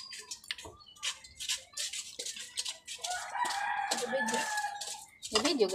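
A rooster crows once, one long wavering call of about two seconds starting about three seconds in. Before it, scattered light clicks and taps.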